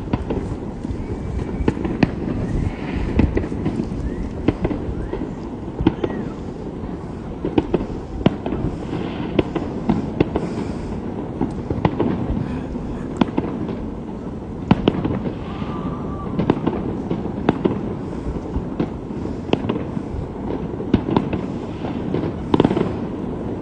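Fireworks going off: a constant, irregular run of sharp bangs and cracks over a steady low rumble.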